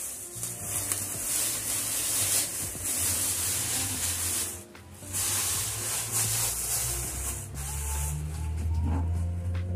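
Clear plastic wrapping rustling and crinkling as it is pulled off the parts of a heat press machine and crumpled by hand, with a short pause about halfway, over faint background music.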